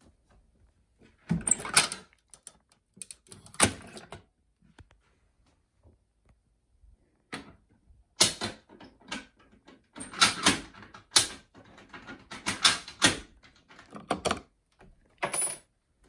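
Irregular sharp clicks and clunks of a fire alarm pull station's mechanism being worked and handled: two knocks in the first few seconds, then a busier run of clicks over the second half.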